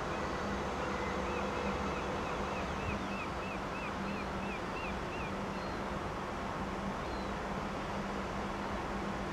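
Steady rushing outdoor noise of wind and water, with a low steady hum underneath. About a second in, a run of about a dozen quick high chirps, roughly three a second, lasting about four seconds.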